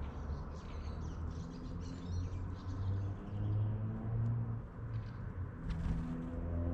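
Small songbirds chirping in short, high calls, clustered in the first couple of seconds and again near the end, over a louder low hum that shifts pitch in steps.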